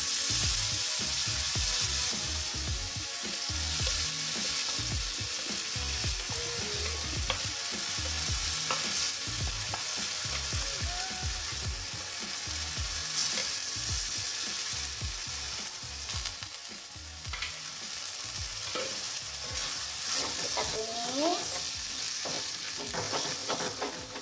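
Blended chili-and-shallot spice paste sizzling steadily as it is sautéed in hot oil in a metal wok, with a spatula stirring and scraping it and knocking lightly against the pan.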